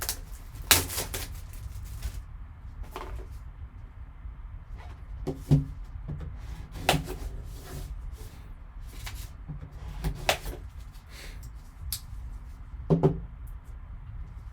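Hands opening and handling a sealed trading card box: scattered sharp clicks and knocks of cardboard and wrapper, a second or two apart, over a low steady hum.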